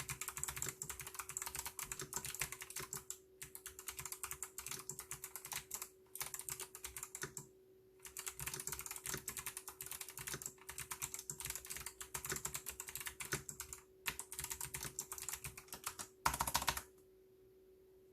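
Mechanical keyboard with Kailh White switches being typed on quickly, key clicks in runs broken by short pauses. A dense, loudest burst of keystrokes comes near the end, then the typing stops.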